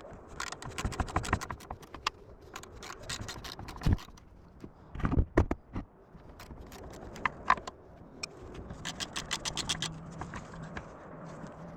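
Hand tools working on metal on a tractor's radiator fan assembly: runs of rapid, evenly spaced clicks and a few louder knocks about four and five seconds in.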